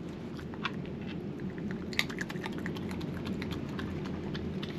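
European badger foraging on a hard tiled floor: many small, irregular clicks and taps as it moves and picks up food, over a steady low wind rumble.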